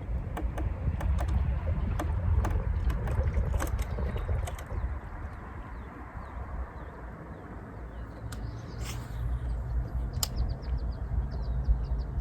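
Low rumble with scattered sharp clicks, and small birds chirping in short repeated notes, more of them in the second half.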